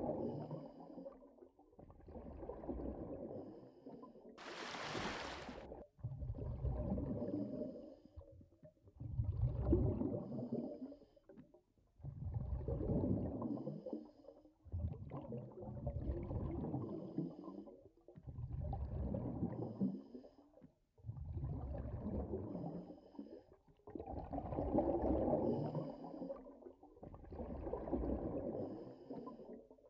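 Underwater-style ambient sound: a low whooshing swell that rises and falls about every two to two and a half seconds. A brief hiss comes about five seconds in.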